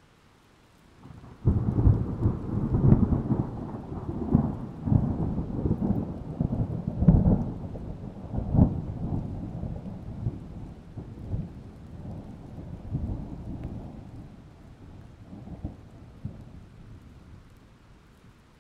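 A roll of thunder: a low rumble that starts suddenly about a second and a half in, with crackling peaks, and dies away slowly over some fifteen seconds.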